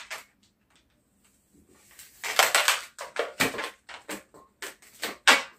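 Long latex modelling balloons rubbing and squeaking under the hands as they are twisted into a small bubble. The run of short squeaks and rubs starts about two seconds in and carries on almost to the end.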